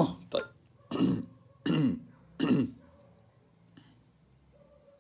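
A man coughing and clearing his throat three times in quick succession, each cough a short burst with a falling pitch.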